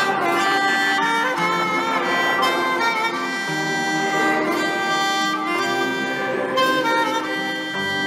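Instrumental background music: a bowed-string melody over a steady accompaniment.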